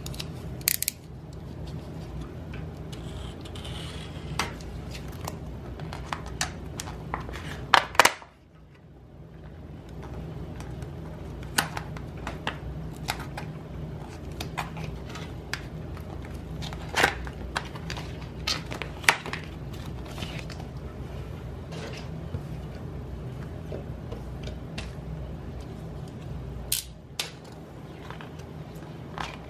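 Hands working open a package: scattered irregular clicks and crinkles of packaging being handled, over a steady low hum.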